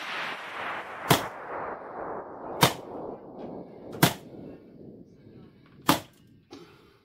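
Electric staple gun firing four times, single sharp snaps about one and a half to two seconds apart, stapling upholstery fabric onto a seat pad. Under the first snaps a steady hissing noise fades away over the first few seconds.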